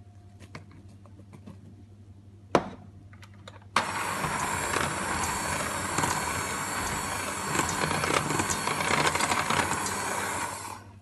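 Electric hand mixer running, its beaters whirring through cake batter in a stainless steel bowl; it starts about four seconds in and stops just before the end. Before it, a few faint ticks and one sharp knock.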